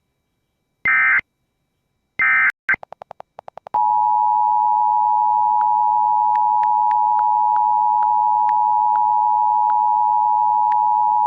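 Emergency Alert System end-of-message data bursts, two short screeching digital bursts about a second apart, then a quick run of clicks. About four seconds in, the steady two-tone EAS attention signal starts and holds for about eight seconds.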